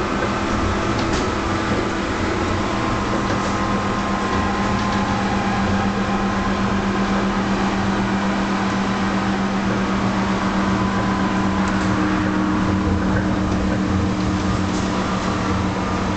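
Electric tram running steadily along the track, heard from inside at the front. A constant drive hum sits over the rumble of wheels on rails, with a few faint clicks.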